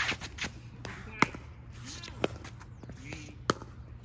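Pickleball rally: four sharp pops of paddles striking the hollow plastic ball, about one a second, the loudest about a second in.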